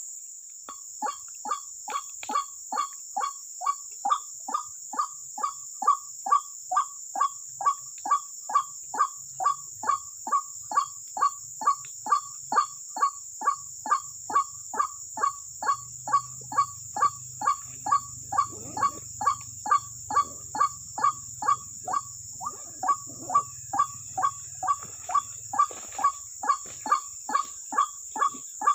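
White-breasted waterhen (ruak-ruak) calling: a monotonous call note repeated evenly, nearly three a second. It starts about a second in and breaks briefly about two-thirds through. Under it runs a steady high drone of insects.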